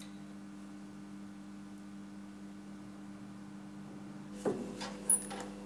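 Steady low hum of room tone, with two short light knocks near the end.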